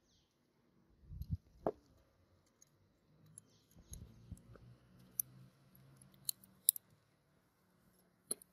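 Gold-plated revolver parts being handled and fitted together. There are two low knocks with a short metallic ring about a second and a half in, some handling noise, then several sharp metal clicks near the end.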